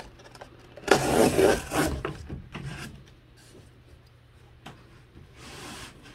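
Cardboard being cut and handled: a loud scraping, rubbing burst lasting about a second near the start. Then a single click and a softer rub of cardboard near the end.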